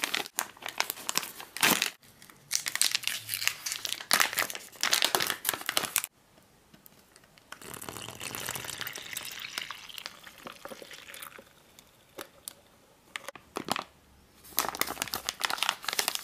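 Plastic MRE chocolate dairy shake pouch crinkling and rustling as it is handled and opened. In the middle a softer steady rush runs for about four seconds as water is poured in. The pouch crinkles again near the end as it is folded closed.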